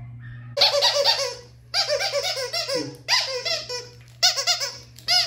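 A small dog, likely a puppy, yipping in quick high-pitched yelps. The yelps come in four runs of about a second each, separated by short pauses, over a steady low hum.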